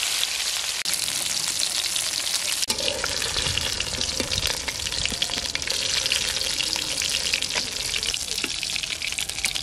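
Rui fish pieces frying in hot mustard oil in an aluminium kadai: a steady, dense sizzle, with a metal spatula scraping and turning the pieces in the pan.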